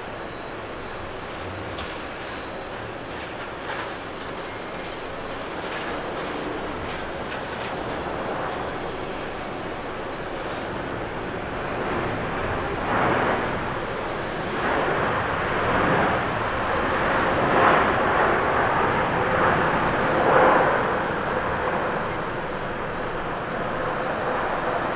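Jet engines of a Boeing 747-8 (four GE GEnx-2B) during landing and the landing roll: a steady jet noise that grows louder from about halfway through, with several strong surges in the second half.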